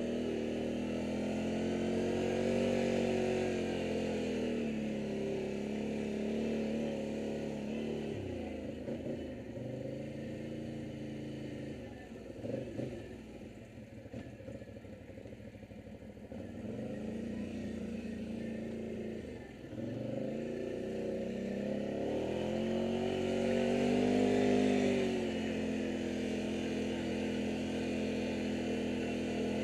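ATV (quad) engine running as it is ridden on a dirt trail, its pitch rising and falling with the throttle. For about ten seconds in the middle the revs drop low and uneven, then climb again.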